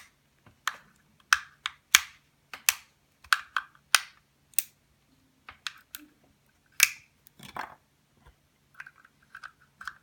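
Irregular sharp clicks and snaps of hard plastic parts being handled and pressed together, about twenty in all, with a faint steady hum underneath.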